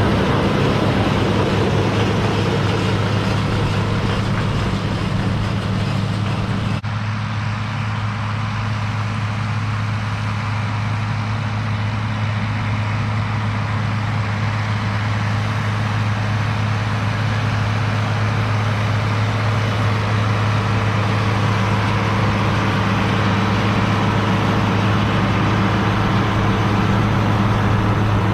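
Farm tractor engine running steadily: a continuous low drone with a strong, even hum. The sound shifts abruptly about seven seconds in, and the engine drone carries on unchanged after that.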